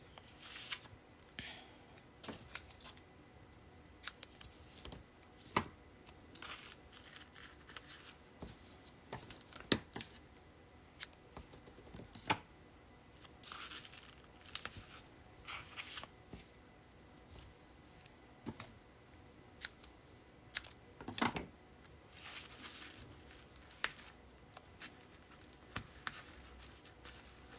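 Double-sided Tear & Tape adhesive tape and red cardstock being handled: faint, irregular taps and clicks with short rustling and tearing sounds as the tape is pulled, torn and pressed onto the card.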